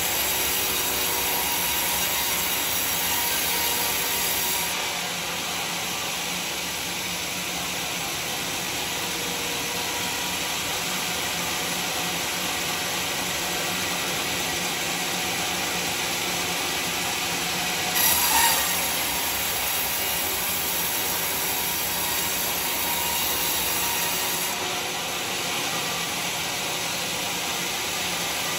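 Homemade band sawmill blade running steadily as it cuts lengthwise through a large teak log, with a brief louder burst about two-thirds of the way through.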